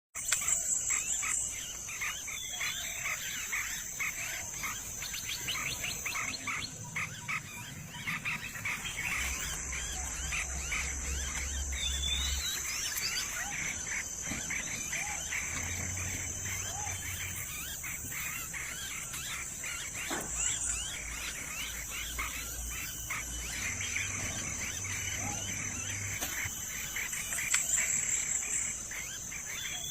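Outdoor ambience of a steady high-pitched insect drone, cricket-like, with many short bird chirps and calls over it.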